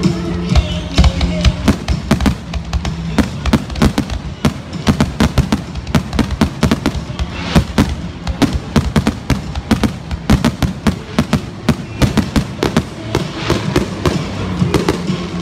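Aerial fireworks launching and bursting overhead: a dense, loud run of sharp bangs and crackles, several every second.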